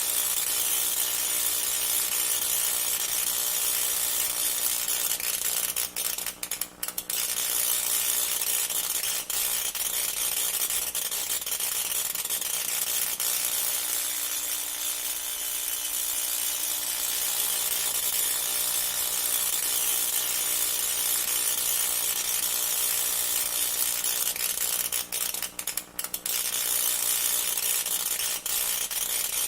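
Tesla coil discharging: a continuous harsh, buzzing crackle of electric sparks, cutting out briefly about six seconds in and again about twenty-five seconds in.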